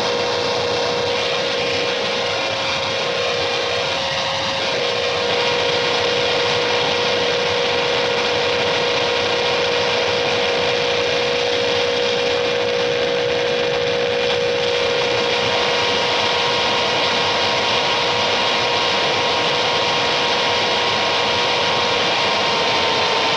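Harsh noise music: a dense, unbroken wall of noise with two steady hums running through it, getting a little louder about five seconds in.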